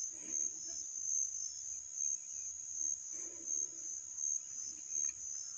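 Insects trilling steadily at a high pitch, a continuous shrill chorus, with a few faint low murmurs underneath.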